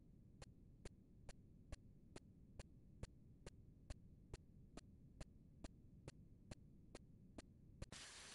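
Near silence: a faint low hum with faint, evenly spaced ticks, a little over two a second. A steady hiss of room noise comes in near the end.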